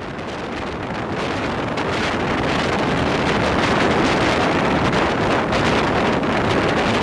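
Wind rushing over a microphone held out of the open window of a moving passenger train, mixed with the train's running noise. The sound swells over the first couple of seconds, then holds steady and loud.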